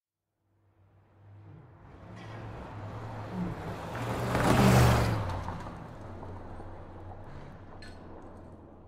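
A motor vehicle passing by: engine hum and tyre noise swell to a peak about halfway through, then fade slowly. Two short clicks come near the end.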